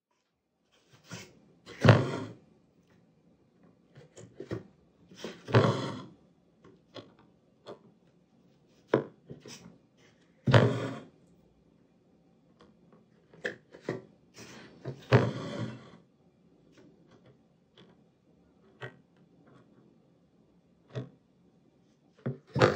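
Hand embroidery on cloth stretched taut in a wooden hoop: the needle taps and pops through the fabric and the thread swishes as it is drawn through. The sounds come at irregular intervals, a louder stroke every few seconds with small ticks between.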